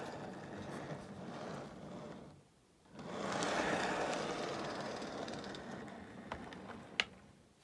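Wheels of a Lionel 21-inch passenger car rolling along model railroad track as the car is pushed by hand: a steady rolling rumble that breaks off briefly a couple of seconds in, comes back louder and fades away. A single sharp click near the end.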